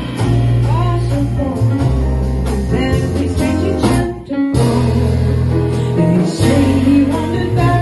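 Live small-group jazz: a plucked double bass holding long low notes under piano, with a woman singing.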